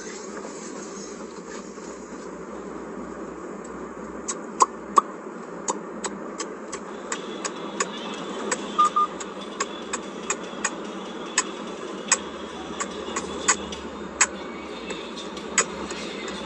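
Steady road and engine noise inside a moving car's cabin. From about four seconds in, sharp clicks come irregularly, about two a second, and a brief double beep sounds about halfway through.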